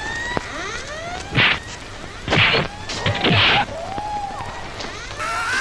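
Dubbed martial-arts fight sound effects in the style of 1980s Tamil action films: three loud punch or kick hits about a second apart, each with a falling swish tail, among arching whooshes.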